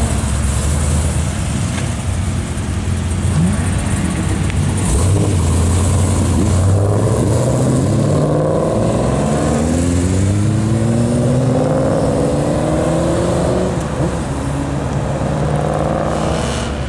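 Ford Mustang's engine and exhaust accelerating hard away, its pitch climbing and dropping back several times as it shifts up through the gears.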